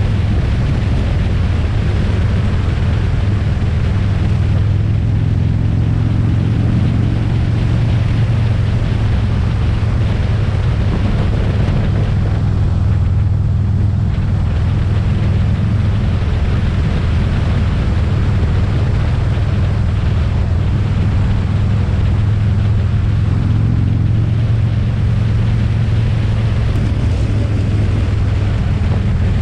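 Motorcycle engine running at a steady cruising speed, a constant low drone, with wind rushing over the microphone.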